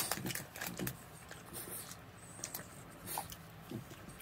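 Faint, scattered rustles and small clicks of a plastic gummy-candy packet being handled and candies picked out by hand.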